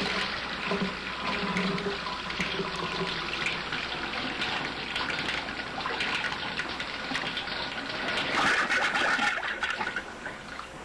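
Water running from a two-handle tub and shower faucet, opened with the main shut off to bleed the remaining pressure out of the supply lines. A steady rush that grows louder about eight seconds in.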